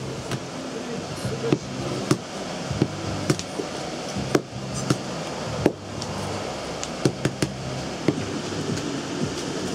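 Irregular sharp clicks and knocks from a handheld price labeller and cardboard price tags being handled on a counter, about a dozen in all, loudest a little before the middle and in a quick cluster about three-quarters of the way through, over low background music.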